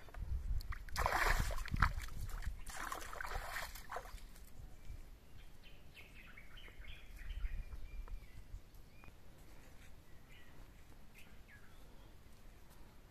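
Rinse water flung from a plate splashing, twice, about one and three seconds in. Faint bird calls follow.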